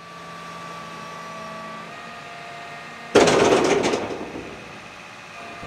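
John Deere excavator running with steady mechanical tones that shift about two seconds in. A little after three seconds there is a sudden loud rush of dirt spilling from the bucket onto the spoil pile, fading over about a second.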